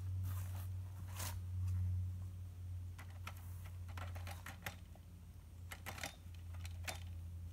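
Scattered light clicks and taps from a cordless string trimmer being handled, with its motor not running, over a steady low hum.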